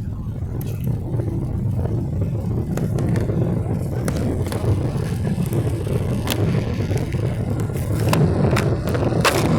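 Steady low rumble inside the cabin of a Boeing 777-300, growing slightly louder, with sharp clicks and rattles that come more often in the last few seconds.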